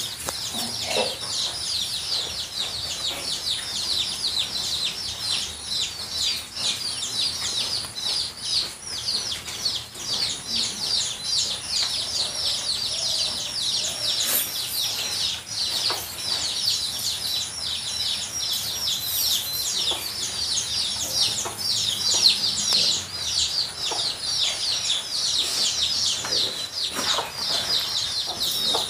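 Many small birds chirping at once: a dense, unbroken chorus of quick, high, downward-sweeping cheeps.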